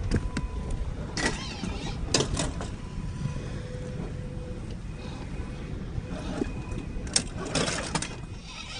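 Small brushed electric motor of a 1/10-scale RC rock crawler whining faintly at crawling speed, with a few short scrapes and clatters of tyres and chassis on rock about a second in, around two seconds in, and near the end.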